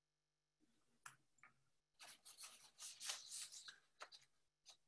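Faint rustling and handling noises: a run of short scratchy sounds starting about two seconds in and lasting a couple of seconds, with near silence before them.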